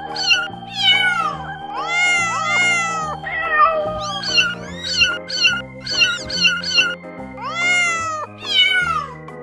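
Very young kittens meowing over and over in short, high, thin cries, coming about two a second through the middle stretch. Background music plays under them.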